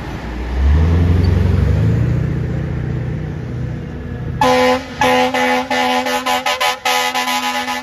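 A passing vehicle's engine rumbles loudly and fades, then from about halfway through a fire engine's air horn sounds in a rapid string of short blasts as it approaches.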